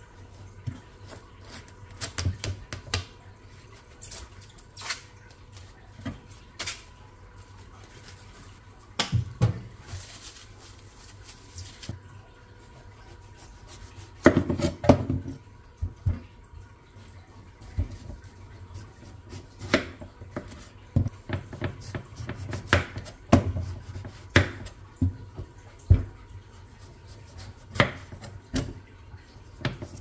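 Dishes and utensils clinking and knocking at irregular intervals, with a faint steady hum underneath.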